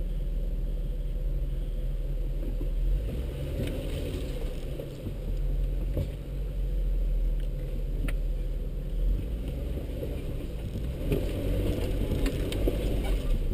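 Jeep crawling along a rough, rocky dirt trail: a steady low engine and drivetrain rumble, with scattered sharp knocks and rattles as the vehicle rides over the stony track.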